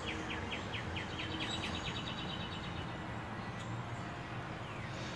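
A small bird singing a fast trill of short descending chirps, several a second. The chirps quicken and rise slightly in pitch about a second and a half in, then fade out, over steady outdoor background noise.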